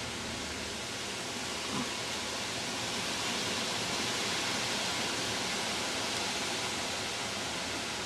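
Steady hissing noise of a snowstorm, with no distinct sounds standing out.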